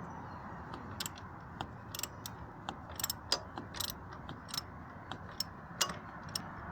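Ratchet wrench clicking in short irregular runs as it turns the alternator belt's tensioning bolt.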